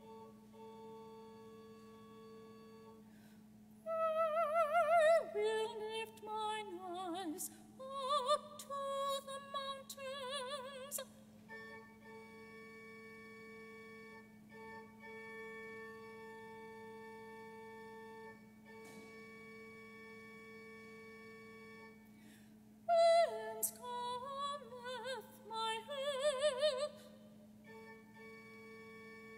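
Church organ holding steady chords while a solo singer with a wide vibrato sings a hymn. The voice enters about four seconds in and again about twenty-three seconds in, and the organ sounds on alone in between.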